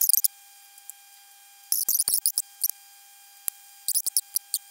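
Cheap diode laser engraver's stepper motors chirping as the gantry moves the laser over the sugar: several short runs of high squeaky chirps, starting and stopping, over a faint steady whine.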